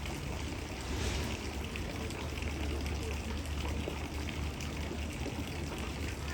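Steady background noise with a low hum, indistinct voices and a running-water sound.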